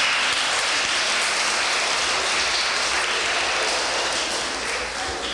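Audience applause: steady clapping that thins out near the end.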